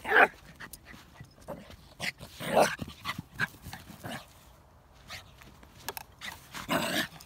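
Lhasa apso making short vocal noises while playing and rolling about. The three loudest come right at the start, about two and a half seconds in, and near the end.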